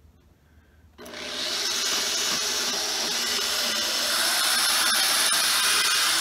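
Power drill boring a pilot hole into a wooden hive box. The motor starts suddenly about a second in and runs steadily under load.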